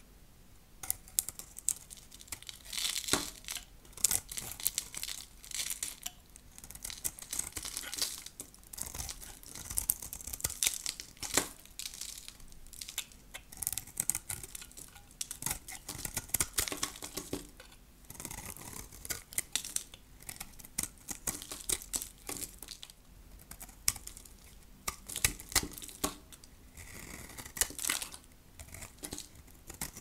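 Hard, dry soap crackling and crunching in a run of short, crisp strokes that come in clusters a second or two apart.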